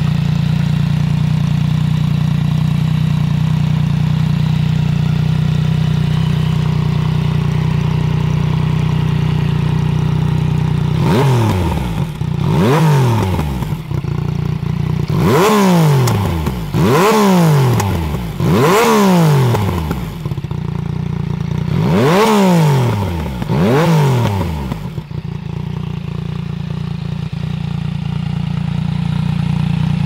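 Yamaha XSR900's inline three-cylinder engine through an aftermarket Zard exhaust. It idles steadily for about eleven seconds, then gets seven sharp throttle blips, each one rising quickly in pitch and falling back. Then it settles to idle again for the last few seconds.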